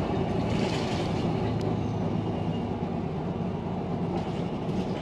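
City bus running along the road, its engine and road noise heard from inside the cabin as a steady low rumble.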